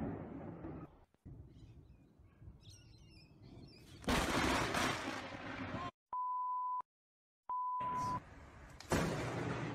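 A close lightning strike: a sudden, very loud crash of thunder about four seconds in, lasting about two seconds. Then two steady high electronic beeps, each under a second, set in dead silence, and another sudden loud burst near the end.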